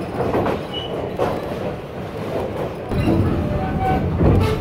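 Heritage railroad passenger coach rolling along the track, a steady low rumble that eases off in the middle and grows louder again about three seconds in, with indistinct voices in the car.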